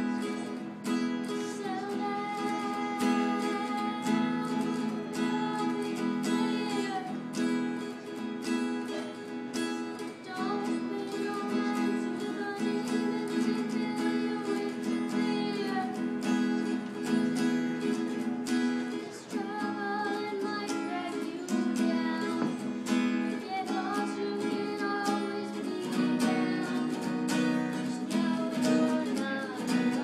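Acoustic guitar strummed steadily in chords while a young voice sings a melody over it.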